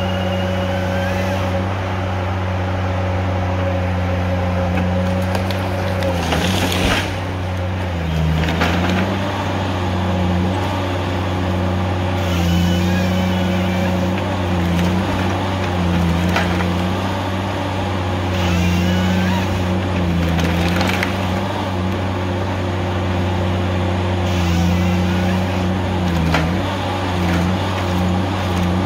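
Tigercat H822C tracked harvester's diesel engine running steadily under hydraulic load, its pitch dipping briefly every few seconds as the Log Max 7000XT head grips and feeds a white pine stem. Short bursts of noise from the head come at intervals.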